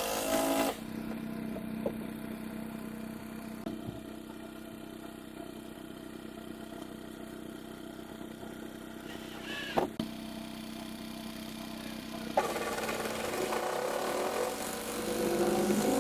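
A motor running with a steady hum, broken by a short sharp sound about ten seconds in, and growing louder and noisier from about twelve seconds.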